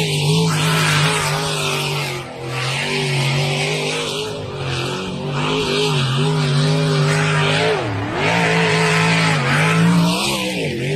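An engine running steadily, its pitch wavering slightly up and down, with a hiss over it.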